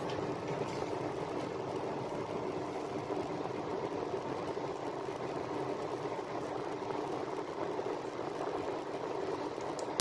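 Oven fan running with a steady hum and hiss.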